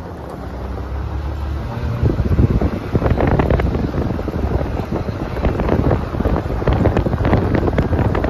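Can-Am Maverick X3 side-by-side driving on a dirt road: engine running under heavy wind buffeting on the microphone. It gets louder about two seconds in, with a busy patter of gravel and chassis rattles from about three seconds in.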